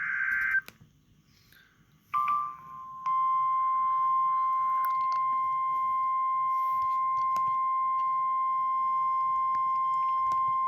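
NOAA Weather Radio emergency alert: a buzzy burst of the SAME digital data header ends about half a second in, a brief beep follows about two seconds in, and from about three seconds the steady 1050 Hz warning alarm tone sounds, one loud unbroken tone. This is the signal that a warning message follows, here a severe thunderstorm warning.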